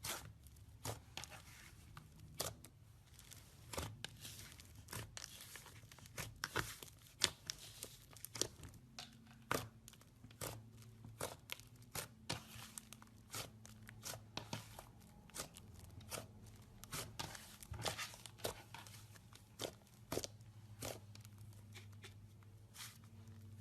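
Slime being handled, giving irregular small pops and clicks, one to three a second, over a faint low hum.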